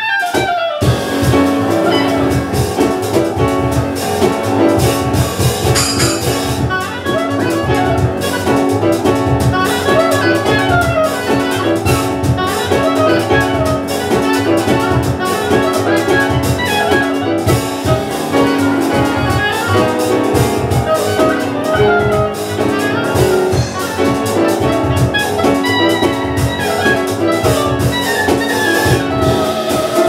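Live jazz band playing a fast, up-tempo tune: an oboe leads with quick, busy melodic runs over piano, double bass and drums.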